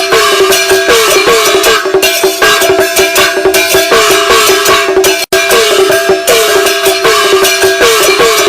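Background music with a steady beat and a short pitched figure repeating a couple of times a second; it cuts out for an instant about five seconds in.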